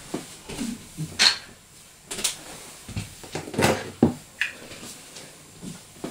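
Airsoft pistol magazines being picked up off a wooden desktop and handled, giving a series of separate clacks and knocks of hard objects against the wood and each other.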